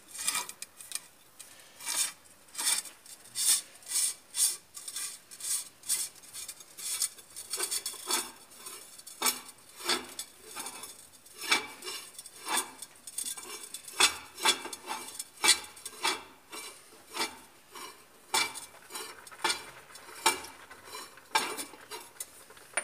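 Repeated metallic clicking and clinking, about one to two strokes a second, as a wrench is worked on the screw of a cylinder-liner puller to draw a liner out of an Isuzu diesel engine block.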